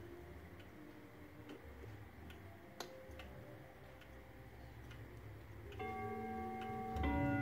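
Antique Frisian-style weight-driven wall clock ticking faintly, then striking as the minute hand is pushed up to the hour: two ringing chime strokes near the end.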